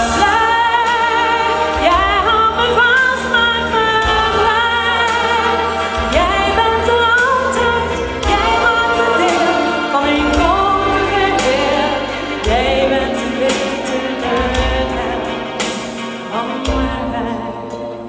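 A woman singing a love song live into a handheld microphone over instrumental backing. The music grows quieter near the end.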